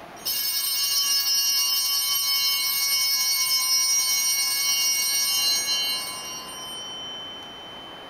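Altar bells ringing at the elevation of the host after the consecration: a bright, many-toned high ringing that starts suddenly, holds steady for about five seconds, then dies away.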